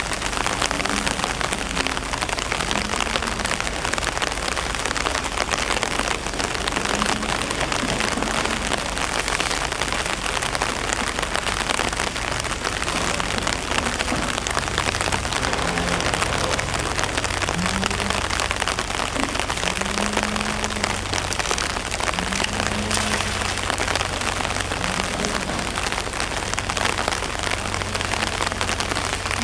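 Steady rain falling on hard ground and wet sand, an even hiss with no break.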